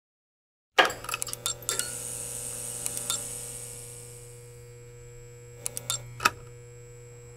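Intro sound effect: a burst of sharp metallic clicks and clinks, like cash register keys and coins, over a steady low hum. It starts suddenly about a second in, and a few more clicks come about three and six seconds in.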